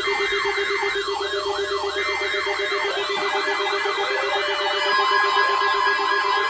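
Emergency alert sequence from a NOAA Weather Radio warning: short bursts of the screechy SAME data header, overlaid by weather-alert receivers' siren alarms, with falling sweeps repeating about three times a second and speeding up about halfway, over a rapid pulsing buzz. About three-quarters of the way in, a steady alert tone joins.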